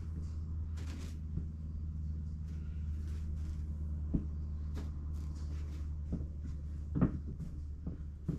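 A steady low mechanical hum with scattered knocks and clatter over it; the loudest knock comes about seven seconds in.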